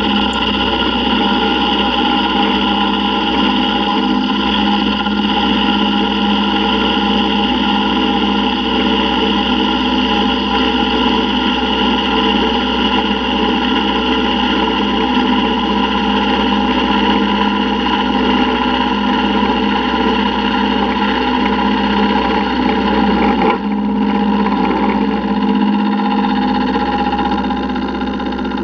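Milling machine running with an end mill cutting the inside opening of a metal T6 exhaust flange: a steady motor and spindle whine made of several held tones over a low hum. The tone changes briefly about three quarters of the way through.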